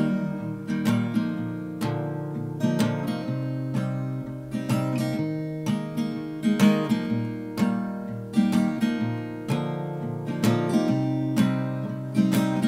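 Acoustic guitar played alone, without voice: strummed and picked chords, about two or three strokes a second, each left ringing.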